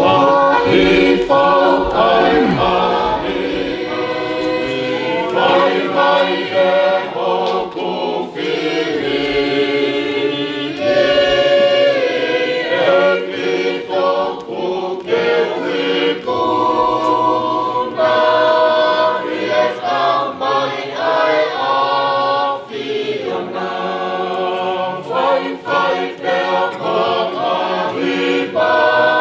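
Church choir and congregation singing a Tongan hymn in several-part harmony, with many voices holding long notes together.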